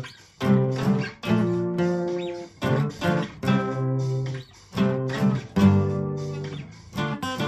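Guitar strumming chords in a choppy stop-start rhythm, each chord ringing briefly before it is cut off.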